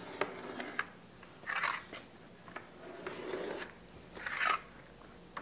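Pencil scratching along the edge of a long level on a weathered wooden tabletop, marking a cut line: two short scratchy strokes, about one and a half and four and a half seconds in, with a few light knocks as the level is set and shifted.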